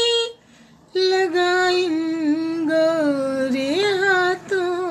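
A woman singing a Hindi film song solo with no accompaniment, drawing out the word 'lagaai' in long, wavering notes after a short breath pause near the start.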